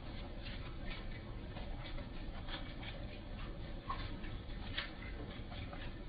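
Light, irregular ticking and pattering of falling wet snow striking nearby surfaces, several ticks a second, over a steady low background noise.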